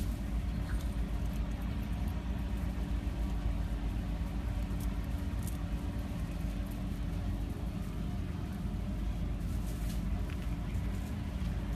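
A steady low rumble, with a few faint crunches scattered through it from a rabbit chewing on a leafy twig.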